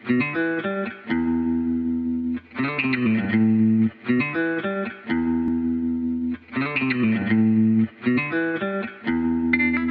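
Background music: a plucked-guitar phrase, a quick run of notes followed by a held chord, repeating every two to three seconds.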